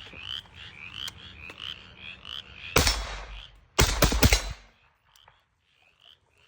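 An AR-style rifle fires a single shot, then a quick string of about four more, each crack ringing out briefly. Frogs chirp steadily in the background, about three calls a second.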